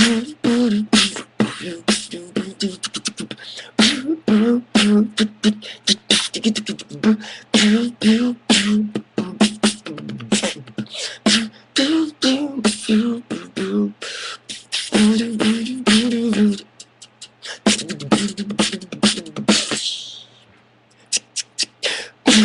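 Human beatboxing: quick mouth-made drum hits and hi-hat clicks with a hummed melody over them, a beatbox cover of an electronic pop song. The beat thins out and drops away briefly near the end before picking up again.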